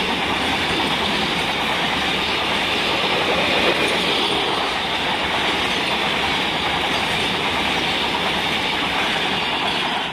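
Container wagons of a freight train running past at close range: steady, loud wheel-on-rail noise from the passing wagons.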